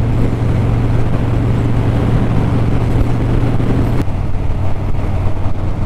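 Harley-Davidson cruiser's V-twin engine running steadily at highway cruising speed, heard from the handlebars. About four seconds in, the note changes abruptly at an edit to another steady engine hum.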